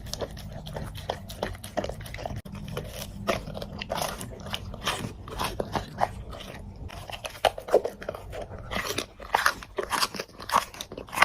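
Golden retrievers eating, crunching dry kibble and chewing with irregular, rapid crunches.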